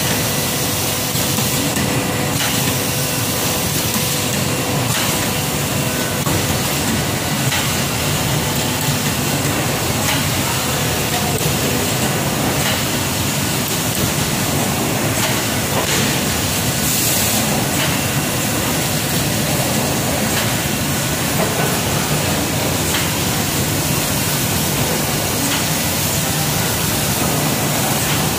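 Automatic case making machine running: a steady, loud hiss of air with occasional faint clicks and knocks from the mechanism.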